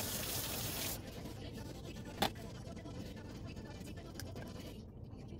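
An egg is tapped on the rim of a stainless steel saucepan and cracked open. One sharp crack about two seconds in, a fainter click a couple of seconds later, over a steady low background rumble, after a brief hiss at the start.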